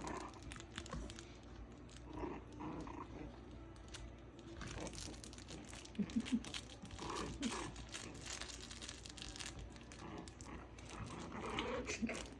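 Five-week-old chihuahua puppies playing, with small puppy yelps and growly noises among scuffling and crinkling, including three quick sounds about six seconds in.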